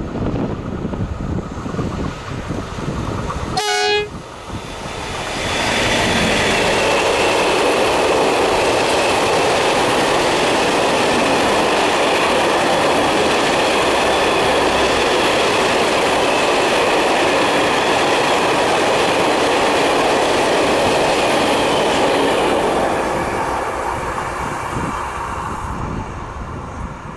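SNCF BB 75000-class diesel-electric freight locomotive approaching with a grain train and giving a very short horn blast about four seconds in. The hopper wagons then roll past with a loud steady rush of wheels on rail and a high ringing from the wheels and rails, which fades away near the end.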